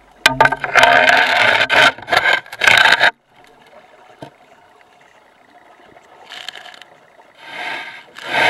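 A scuba diver's exhaled breath bubbling out of the regulator, loud for about the first three seconds, then a quiet stretch while the diver inhales, with the next exhalation starting near the end.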